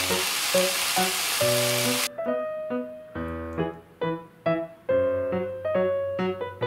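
Okra and pork sizzling as they are stir-fried in a frying pan, over background piano music. The sizzle cuts off abruptly about two seconds in, leaving only the piano.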